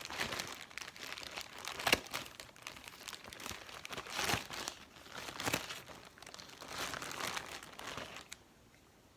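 Package wrapping crinkling and rustling as it is cut and torn open with scissors, with a sharp click about two seconds in; the rustling dies away near the end.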